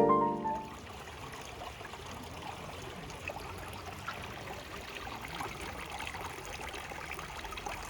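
Steady sound of running water, a stream or trickle flowing without a break.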